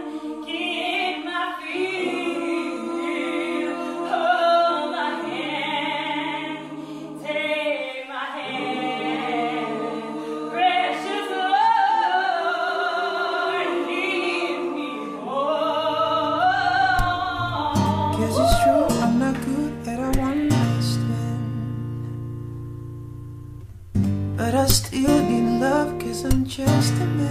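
A small group of women singing a cappella in harmony, with a held low part under the melody. About sixteen seconds in, music with guitar and bass comes in under the voices.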